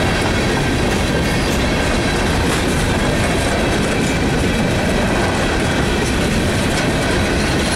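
Loaded coal hopper cars of a freight train rolling past, a steady rumble and clatter of steel wheels on the rail.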